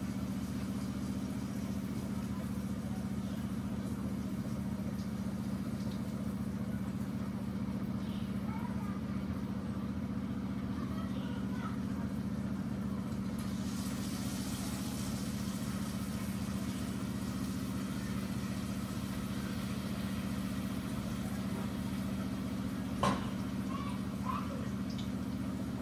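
Battered potato slices dropped into hot oil start to sizzle about halfway through, and the frying hiss carries on. Under it runs a steady low machine hum. Near the end there is one sharp knock.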